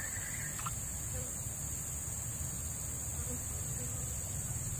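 A chorus of insects buzzing steadily at a high pitch over a low rumble, with one short chirp about half a second in.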